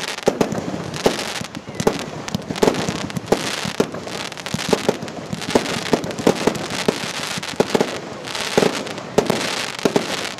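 Aerial fireworks going off in quick succession: sharp bangs, irregular at about one or two a second, over a continuous hiss that swells and fades.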